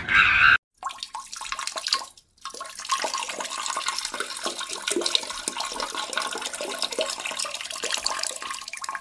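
Water rushing and splashing in a steady, noisy stream, broken by two short gaps in the first couple of seconds.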